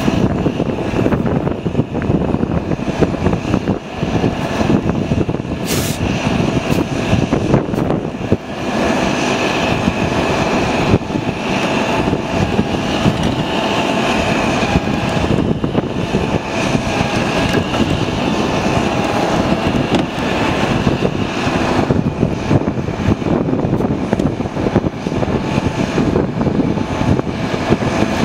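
Heavy tow truck's diesel engine running steadily at a constant speed.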